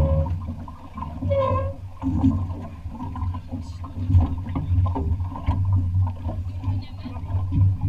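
Wind buffeting a bow-mounted action camera's microphone and water washing along a sailing yacht's hull, with crew voices calling out now and then, one short call about a second and a half in.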